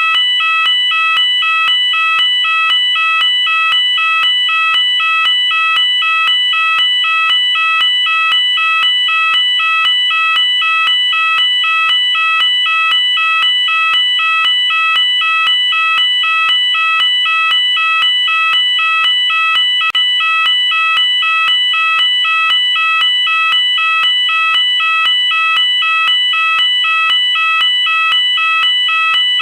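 UK electronic fire alarm sounder going off continuously, a loud two-tone warble rapidly alternating between two pitches in an even, unbroken rhythm.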